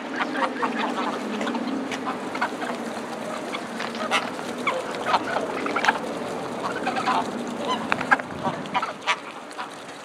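A feeding flock of greylag geese calling: many short honks and cackles, overlapping and spread through the whole stretch.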